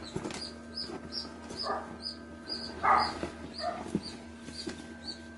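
An animal's short, high squeaks repeating about twice a second, with a few louder whines about one and three seconds in, over a few light clicks.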